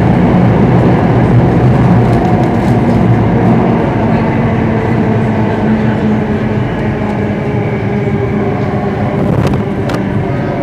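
Singapore MRT Circle Line train running through a tunnel, heard from inside the carriage: a loud steady rumble of wheels on rail with a humming drone, easing a little in the second half.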